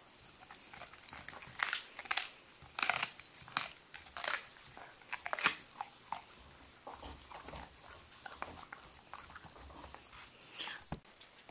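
Siberian husky chewing a raw meaty bone, with irregular sharp crunches every second or so that grow fainter into quieter gnawing in the second half.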